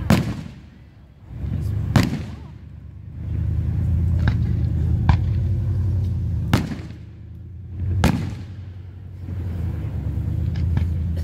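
Aerial firework shells bursting overhead: about half a dozen sharp bangs, a second or two apart, over a low rolling rumble.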